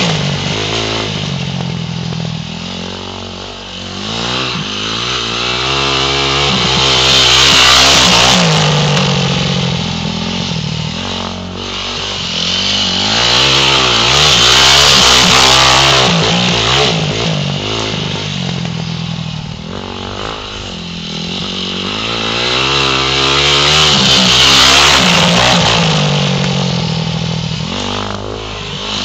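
2009 Yamaha YZ250F four-stroke single-cylinder dirt bike engine revving up and easing off as the bike rides laps, getting louder as it passes close and fading as it moves away, roughly every eight seconds.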